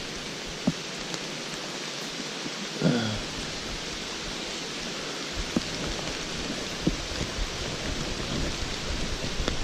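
Steady rain falling, an even hiss, with a few sharp light knocks and one short downward-sliding sound about three seconds in.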